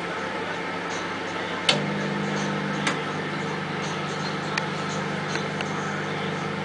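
Microwave oven: a sharp click about two seconds in, then a steady low hum as it runs, with a few faint ticks over it.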